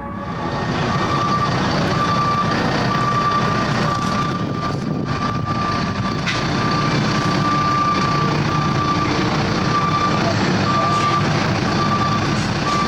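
A vehicle's reversing alarm beeping about once a second over steady engine noise.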